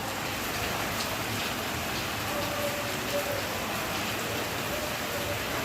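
Steady monsoon rain falling, an even hiss of downpour with now and then a single drop ticking louder.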